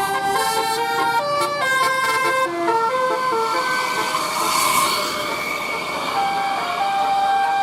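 Bus 'telolet basuri' musical air horn playing a tune: a run of quick stepped notes, then slower held notes. A brief rushing noise comes about halfway through.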